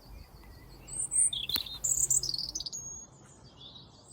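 Small birds chirping and twittering in short high calls, busiest in the middle and fading in the last second.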